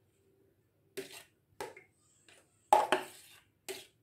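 Metal spoon scraping and knocking against a plastic bowl and a stainless-steel perforated strainer plate while syrupy candied fruit pieces are spooned out, in about five short clinks and scrapes, the loudest a little under three seconds in.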